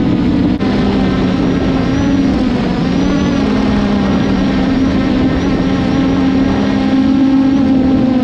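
Quadcopter drone's propellers buzzing steadily, a chord of pitches that wavers slightly.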